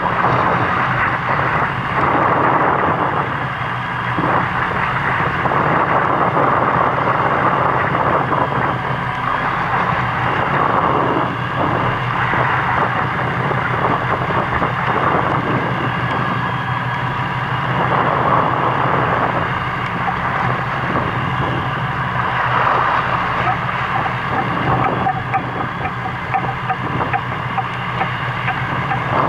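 A fishing boat's engine running steadily, a low even hum, under a rushing wash of wind and water that swells and fades every few seconds.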